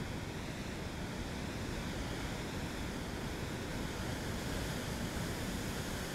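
Pacific surf breaking and foaming over rocks, a steady rushing wash of water.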